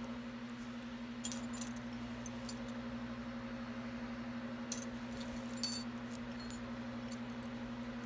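Small metal jewelry clinking and jangling as it is handled: a few light clinks spread through, the sharpest about five and a half seconds in, over a steady low electrical hum.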